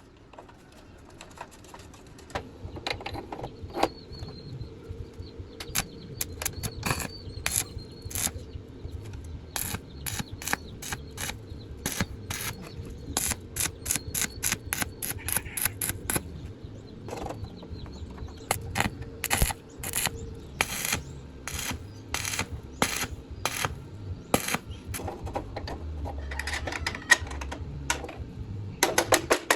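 Many sharp, irregular taps and clicks of light hand work on metal parts, over a faint steady hum. Right at the end the taps come quicker and evenly spaced.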